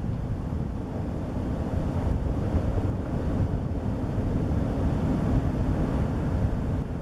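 Wind rumbling on the microphone over the steady wash of sea waves.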